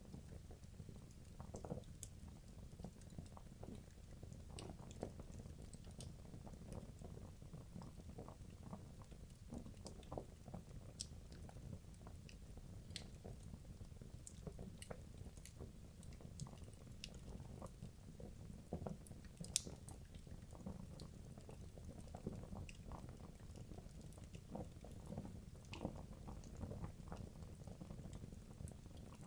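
Wood logs burning in a fireplace: a low steady rumble of flames with frequent small crackles and pops scattered throughout, one sharper pop about two-thirds of the way in.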